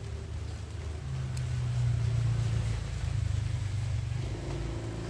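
A low engine rumble, swelling about a second in and easing off after about four seconds.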